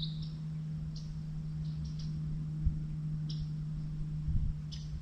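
A steady low hum, with a few short high chirps scattered through and two soft knocks about halfway and near the end.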